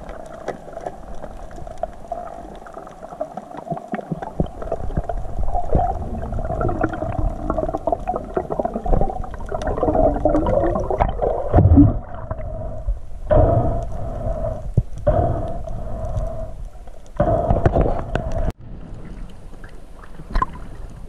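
Underwater sound picked up by a camera on a reef dive: a steady mid-pitched hum under gurgling water, with a few louder rushing swells in the second half.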